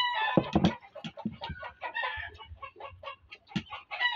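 Domestic chickens clucking in a quick run of short notes, with a longer pitched call at the start and another near the end.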